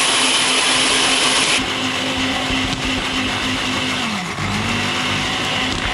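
Electric hand mixer running steadily, its whisks beating eggs in a bowl. The motor's hum sags briefly and recovers about four seconds in.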